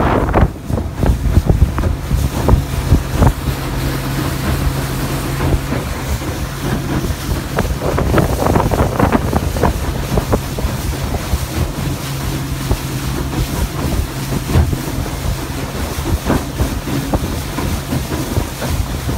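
A small motorboat's engine running with a steady hum, with wind buffeting the microphone.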